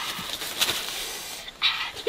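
A boy's strained, breathy cry with gasping breaths, then another short cry near the end.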